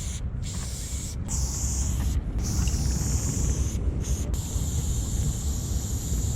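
Aerosol spray paint can hissing in short bursts with brief stops, then in one long unbroken spray from about four seconds in, over a steady low rumble.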